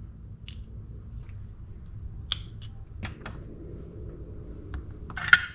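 Scattered small clicks and taps of metal reel parts being handled while a side bearing is fitted into a Shimano Stella FE spinning reel, about five in all, the loudest near the end.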